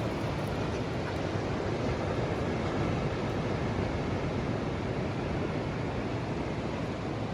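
Steady rush of ocean surf and wind, an even noise without distinct breaks.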